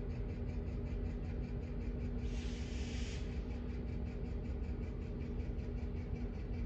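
Night insects chirping in a steady rhythm, about five pulses a second, over a low steady rumble and hum. A brief hiss rises over them about two seconds in and lasts about a second.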